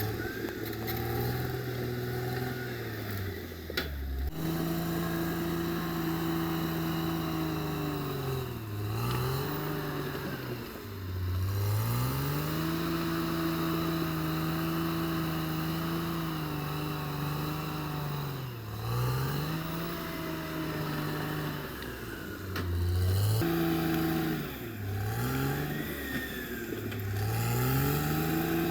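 Caterpillar D6R XL bulldozer's diesel engine running at high revs. Its pitch dips sharply and climbs back several times.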